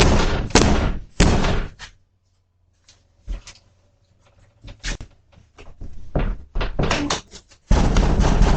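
A door being banged, heard through a doorbell camera's microphone: three loud bangs about half a second apart, then a few softer knocks and clatter. Near the end a loud, steady rushing noise sets in.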